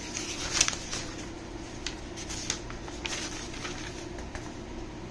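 Paper rustling and crinkling in short, scattered bursts as a printed instruction manual is leafed through, over a steady low hum.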